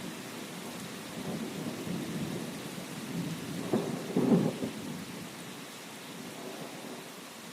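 Steady rain hiss with low rolling thunder. The thunder swells to its loudest about four seconds in, then dies away near the end, leaving only the rain.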